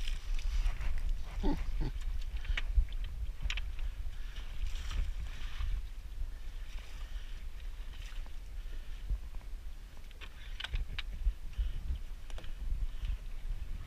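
Sounds of a small boat on the water: water lapping and sloshing against the hull over a steady low rumble, with scattered light knocks and clicks.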